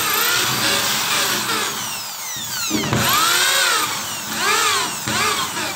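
Electric drill spinning a bit into a hole in fibre-cement board (Hardiflex), widening it into a countersink so a blind rivet's head will sit flush. The motor whine and the grinding of the bit rise and fall in pitch several times.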